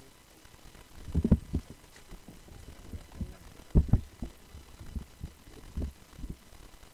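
Irregular low, dull thuds, loudest in a cluster about a second in and another near the middle, with fainter knocks between.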